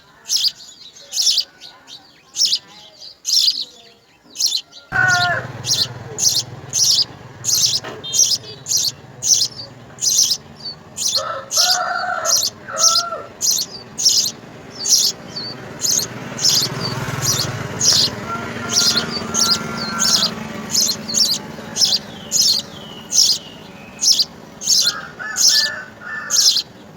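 House sparrows chirping: short, high chirps repeating steadily about twice a second, with a few lower calls in between.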